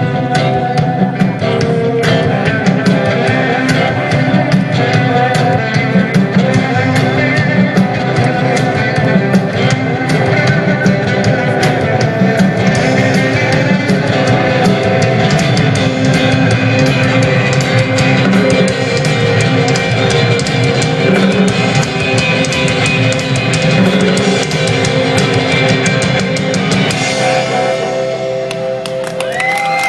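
Live rock band playing an instrumental passage with drum kit and guitar, the drumming stopping and the music winding down near the end.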